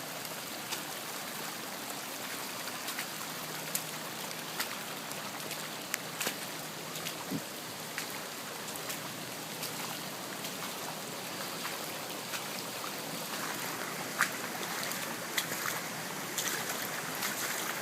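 Floodwater rushing steadily, with scattered short clicks and taps over it; the rush gets a little louder about three-quarters of the way through.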